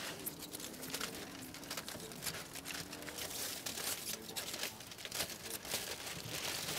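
Steady crackling and sizzling of ribeye steaks and dripping fat over hot charcoal inside a drum grill: many fine pops in a continuous hiss.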